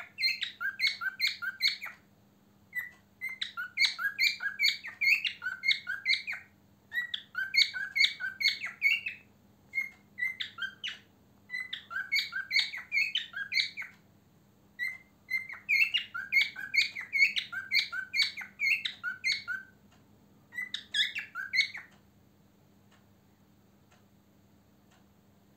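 Male cockatiel singing: bursts of quick, high chirped notes strung into phrases of one to four seconds with short pauses between, falling quiet about 22 seconds in.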